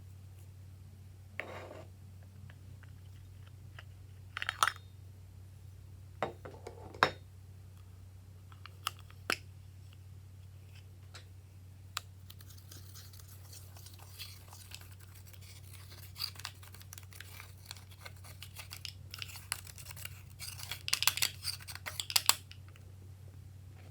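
Glossy slime being handled and pressed: scattered sticky clicks and pops, then a denser run of crackling about halfway through that stops shortly before the end, over a steady low hum.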